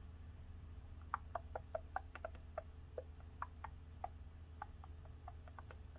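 Faint, irregular light clicking from the keys and trackpad of a mid-2010 13-inch MacBook Pro under a hand, several clicks a second for about four seconds, over a low steady hum.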